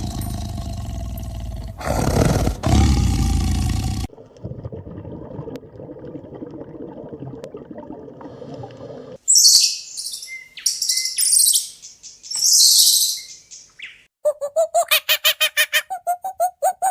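A sequence of animal calls. First comes a loud, low, noisy call for about four seconds. After a quieter stretch there are loud high-pitched bird chirps in clusters. Near the end comes a quick series of short pitched calls, about four a second.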